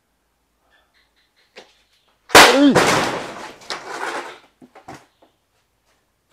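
A sudden, very loud bang about two seconds in, with a brief swooping tone. A noisy crash fades over about two seconds, with a second, smaller hit partway through.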